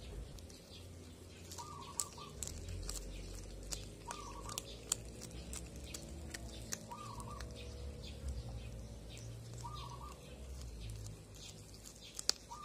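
A cat chewing a fish head, with sharp, irregular crunching clicks as it bites through the bones. A bird's short warbling call repeats about every two and a half seconds behind it.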